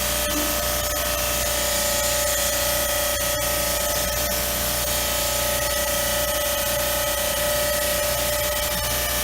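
Small high-pressure washer of the kind used for air-conditioner cleaning, running steadily and spraying water. Its motor and pump give a constant whine over the hiss of the spray.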